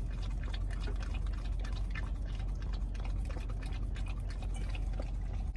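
Boxer dog licking whipped cream out of a paper cup: quick, irregular wet lapping and smacking, over a steady low hum.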